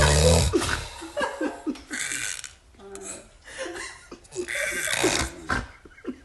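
A man snoring hard: a loud, deep snore at the start, then quieter, irregular snorts and breaths, with another louder breathy burst about five seconds in.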